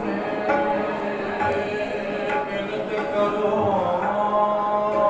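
Devotional hymn singing over a steady held drone note, with a few light drum strokes.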